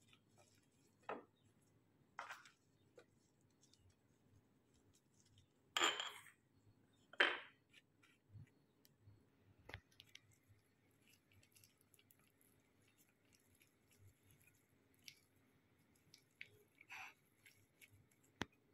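A table knife scraping spread across a flattened slice of bread on a plate, in a few separate strokes, the loudest about six and seven seconds in. Later come softer taps and rustles of gloved hands handling and rolling the bread.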